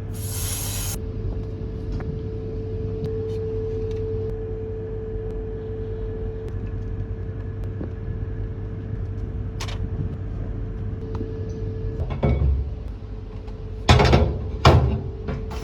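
A small machine running with a steady hum. It opens with about a second of loud hiss, and there are several sharp knocks near the end.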